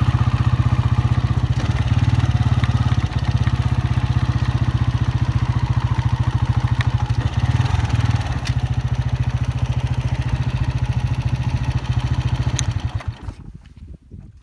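Honda 125 motorcycle's single-cylinder four-stroke engine running steadily, then dying away near the end as it is shut off.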